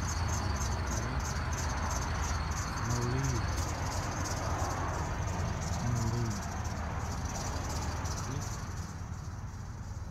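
Outdoor parking-lot ambience: a steady low rumble of wind and traffic, with a faint row of short, high pips repeating about three times a second that fade out over the second half.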